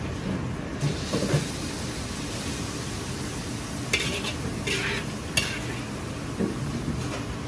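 Steady background noise of a restaurant kitchen, with a metal ladle scraping and clinking against a wok three times in the second half as ginger pork is scooped out.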